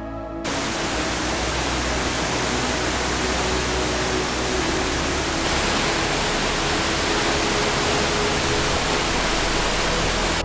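Steady rush of the Watagataki waterfall, a dense, even roar of falling water; its hiss gets slightly brighter about halfway through.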